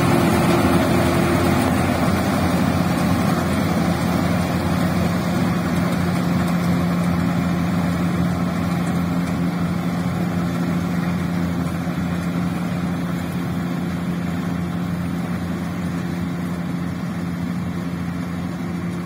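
Kartar Hurricane combine harvester running steadily at a constant pitch as it cuts urad beans. Its engine and threshing noise slowly fade as the machine drives away.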